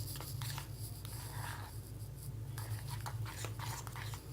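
Slime being stirred in a bowl: irregular scraping and rubbing strokes of the mixing utensil through the sticky glue mixture. A steady low hum runs underneath.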